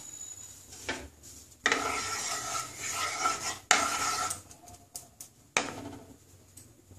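Wooden spatula scraping and rubbing across the bottom of a nonstick kadai as it spreads mustard oil, in two long strokes starting about a second and a half in. Near the end comes a single sharp knock of wood on the pan.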